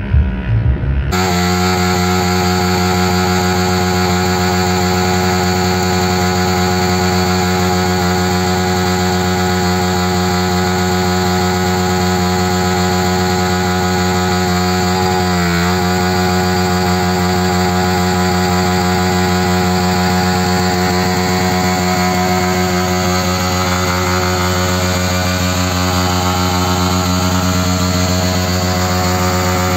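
Yamaha R15 sport bike's 155 cc single-cylinder engine held at steady high revs during a burnout, the rear tyre spinning against the pavement. The pitch dips briefly and recovers about halfway through.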